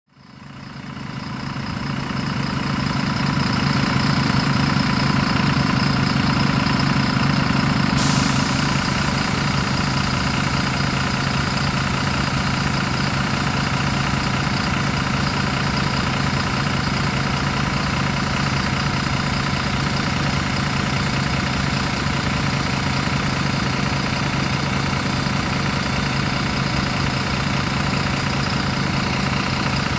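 MAN D0836 LOH64 six-cylinder diesel engine of a Youngman JNP6120GR city bus idling steadily, heard from outside the bus. It fades in over the first couple of seconds, and a steady high hiss joins abruptly about eight seconds in.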